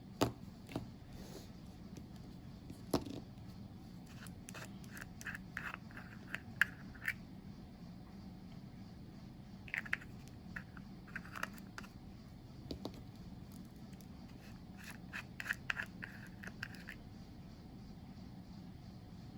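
Small plastic gel paint pots being handled and opened: scattered clicks, taps and scratchy scrapes in several clusters, with a sharper knock at the start and another about three seconds in.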